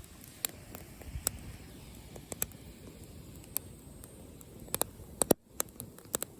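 Open wood campfire crackling: scattered sharp, irregular pops, several in quick succession about five seconds in, over a low steady rumble. The sound drops out almost completely for a moment just after the loudest pop.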